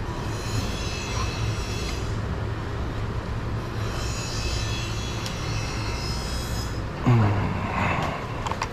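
Husqvarna 445 two-stroke chainsaw engine running steadily at a fast idle that will not come down; the owner suspects the carburetor. A brief louder burst comes about seven seconds in.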